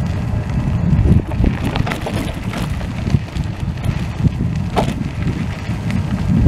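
Wind buffeting the microphone of a moving power wheelchair: a low, gusty rumble, with a few light knocks about two seconds in and again near five seconds.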